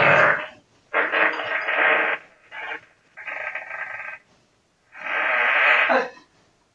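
A string of farts picked up by a doorbell camera's microphone, tinny and phone-like: five bursts, the longest about a second, one of them with a steady buzzing pitch.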